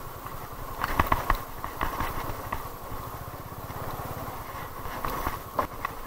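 A TVS Apache RTR 200's single-cylinder engine runs at low speed on a rough, stony dirt track. Sharp knocks and rattles come from the bike jolting over rocks, in a cluster about a second in and again near the end.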